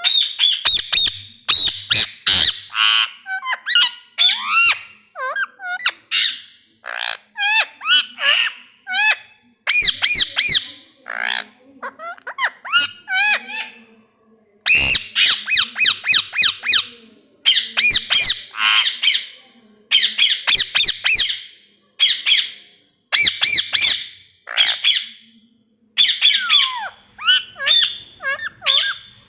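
Parrot squawking and calling, a long string of short shrill calls in quick bursts separated by brief pauses.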